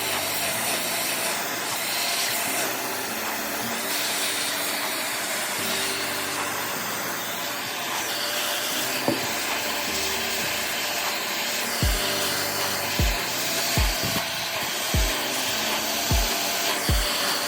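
Steady whooshing machine noise, like a small blower or power tool running, with a wavering hum. Background music with a low beat comes in about two-thirds of the way through.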